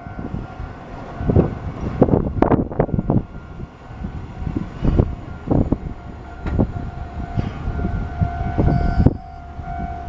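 Wind gusting against the microphone in uneven rumbling buffets, over a steady high tone that grows louder near the end.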